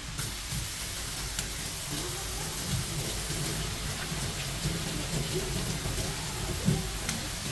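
A steady hiss of water, with a few light clicks and a sharper knock near the end.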